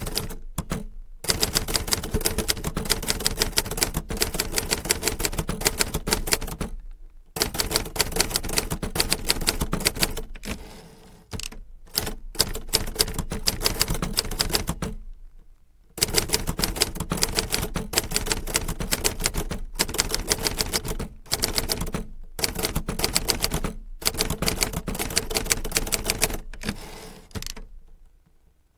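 Typewriter keys striking paper in quick, uneven runs of typing, broken by several short pauses.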